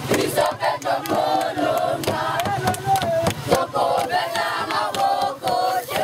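A crowd of many voices, many of them children's, singing and chanting together with shouts, the voices overlapping.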